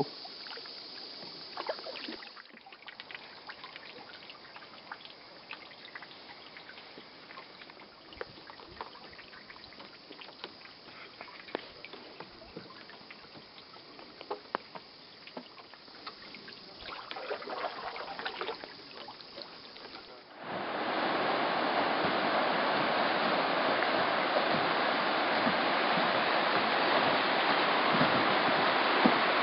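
Canoe paddle strokes on calm river water: soft drips, trickles and small splashes. About two-thirds of the way through it changes suddenly to a loud, steady rush of river rapids churning around the canoe.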